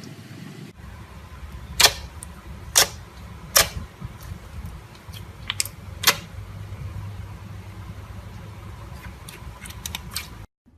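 Slime being handled, giving several sharp, irregular clicks and pops over a steady low hum.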